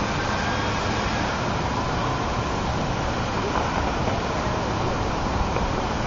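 Steady road traffic noise: an even hiss with no distinct events.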